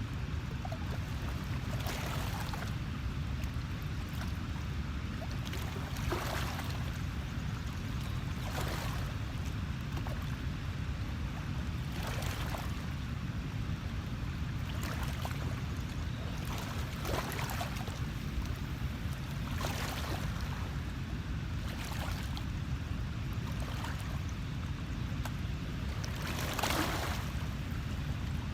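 Small washes of water every two to four seconds over a steady low rumble.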